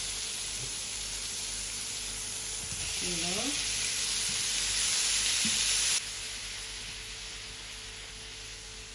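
Prawns, garlic and coriander sizzling in butter in a nonstick frying pan, stirred with a silicone spatula. The sizzle is steady, swells louder about three seconds in and drops suddenly about six seconds in.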